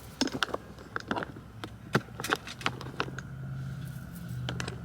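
A run of short clicks and knocks of small objects being handled, with a low steady hum coming in about halfway through.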